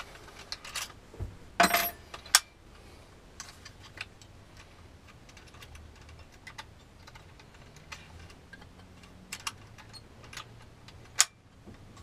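Clicks and small metallic rattles of a jigsaw's blade clamp and a Bosch T308B T-shank wood blade being handled as the blade is changed, with sharper clicks about two seconds in and again near the end.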